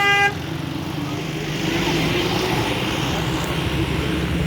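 A bus's multi-tone telolet horn holds a chord and cuts off just after the start, then the bus's engine and road noise runs steadily as it passes.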